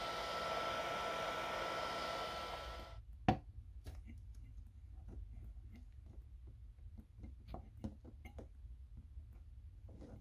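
A hot-air blower running steadily over the phone screen, a fan whir with a few steady tones, cuts off suddenly about three seconds in. A sharp click follows, then light irregular clicks and ticks as a thin metal pry tool works under the edge of the iPhone XS Max's cracked screen to free its adhesive.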